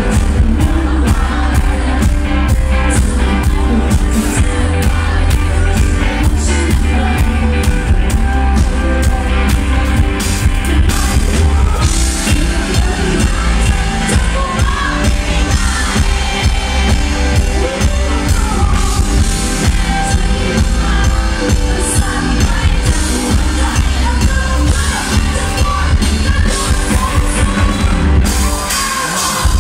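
Live pop-rock band playing a song, with a singer on a microphone over drums, electric bass and guitar, loud and heavy in the bass. The bass drops out briefly near the end.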